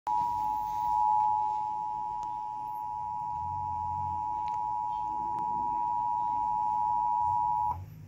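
Emergency Alert System attention signal from a television: the steady two-tone alarm (853 and 960 Hz together) holding for nearly eight seconds, then cutting off sharply. It signals that an emergency alert, here a severe thunderstorm warning, is about to be broadcast.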